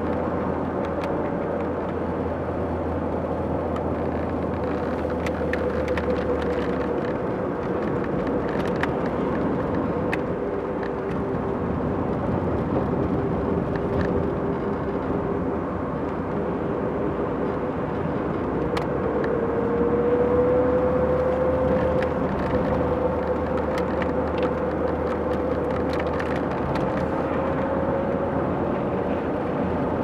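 Steady cabin noise of a car being driven: tyre and road rumble mixed with the hum of the engine, whose note wavers and rises a little about two thirds of the way through.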